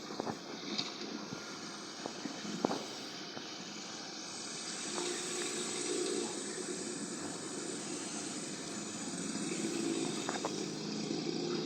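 Road traffic noise: a steady hiss of tyres and engines, swelling as vehicles pass about six seconds in and again near the end, with a few sharp ticks in the first three seconds.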